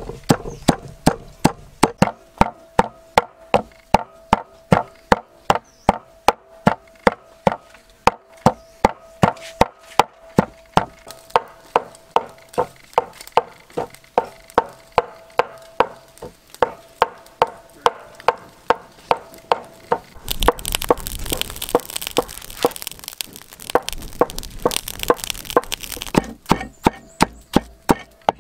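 A kitchen knife chopping on a wooden cutting board, steady and rhythmic at about two to three chops a second. A broad rustling noise joins the chopping for several seconds about two-thirds of the way through.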